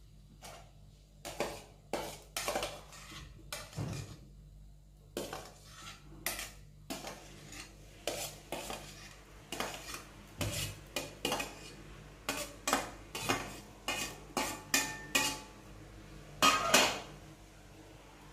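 Stainless steel spoon and plate clinking and scraping against a steel mixer-grinder jar in quick, irregular strokes as roasted raw papaya pieces are scraped off the plate into the jar. The loudest clatter comes near the end.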